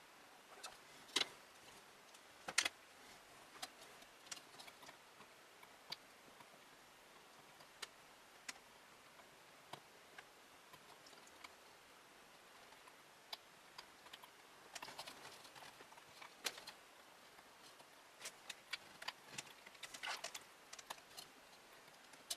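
Scattered light clicks and taps with short bursts of scraping, about halfway through and again near the end: hands fiddling inside a computer case, working fan cables and plugs into place.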